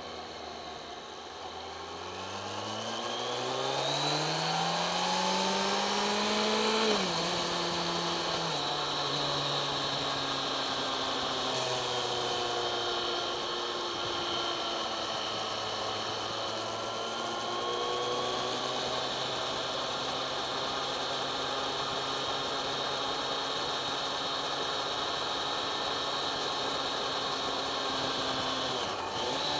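Kawasaki ZX-10R inline-four engine heard from on board, pulling up through the revs for several seconds, then an upshift about seven seconds in and another a second or so later, after which it holds a steady cruise over wind rush. Near the end the revs dip briefly and come back.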